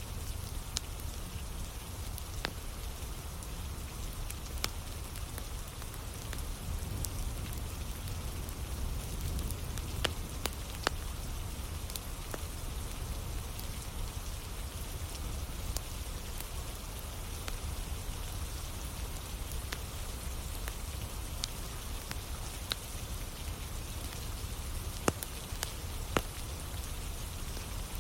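Steady rain with a campfire crackling: a continuous hiss of rain with a low rumble underneath, broken by scattered sharp pops from the burning wood.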